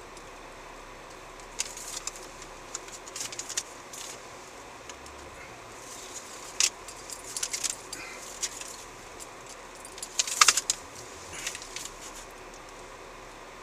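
Keys jangling inside a car's cabin in three short bouts of jingling and clicking, the loudest about two-thirds of the way through, over a steady low hiss.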